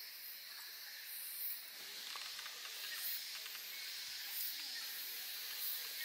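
Indian rhinoceros feeding on cut grass: soft munching and breathing over a steady hiss, swelling slightly about every second and a half.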